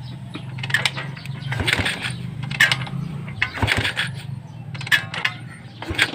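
Kick starter of a 110 cc motorcycle kicked over again and again, a metallic clank about once a second, with the engine not catching: the ignition is giving no spark.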